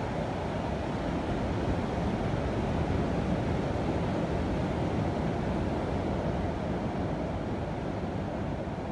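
Ocean surf breaking and washing over a rocky shore, a steady rush with no let-up, with wind noise on the microphone.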